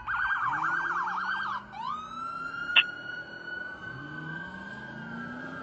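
Fire engine's electronic siren on a fast yelp, which switches about a second and a half in to a rising wail that holds high and slowly falls. A short sharp blip, the loudest moment, comes near the middle.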